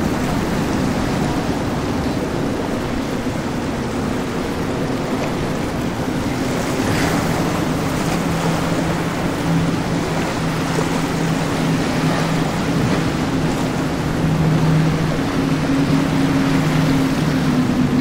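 Powerboat engines running at speed, a steady drone that comes in partway through and grows louder near the end, over the rush of wake and spray on the water.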